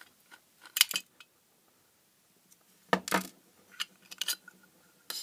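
Small metallic clicks and clinks from hand disassembly of an LED floodlight, as a screw comes out of its reflector and the reflector is worked loose from the metal housing. One click about a second in, a louder clatter near three seconds, then a few light clicks.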